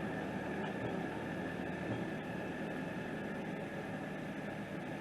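Heavy equipment's engine running steadily, with a constant high whine over it.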